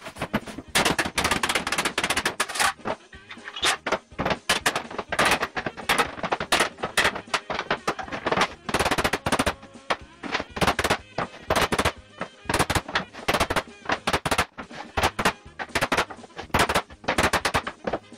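Claw hammer striking a pine shelf again and again, knocking the slats loose from their end boards: quick runs of sharp blows on wood with short pauses between them.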